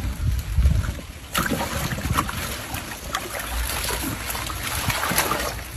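Water splashing and sloshing, with a busy run of small splashes and drips starting about a second and a half in, as someone works in the water by hand.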